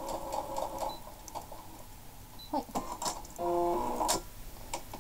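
Small electric sewing machine running with a rhythmic whir for about the first second, then stopping. Clicks and handling noises follow, with a short steady hum lasting under a second near the end.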